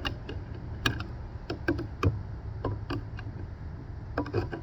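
Irregular short metallic clicks and ticks of a Swiss Army knife's can opener levering and cutting its way around the rim of a tin can, with a steady low rumble underneath.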